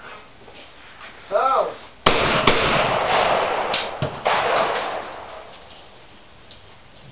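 A short shouted call, then two shotgun shots in quick succession less than half a second apart, a double, with a long echoing tail. Another bang follows about two seconds later.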